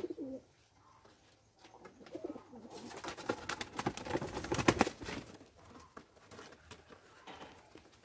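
Pigeons in a bamboo coop cooing softly, then a loud flurry of rapid flapping and rustling lasting about two seconds, from a pigeon's wings beating as it is grabbed by hand inside the coop.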